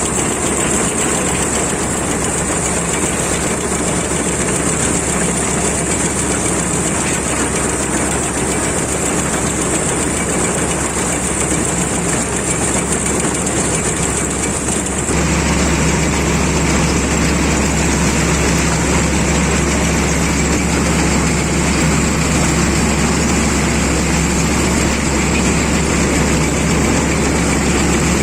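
Rice combine harvester running steadily with a constant engine and machinery noise. The sound shifts abruptly about halfway through to a slightly louder, deeper running.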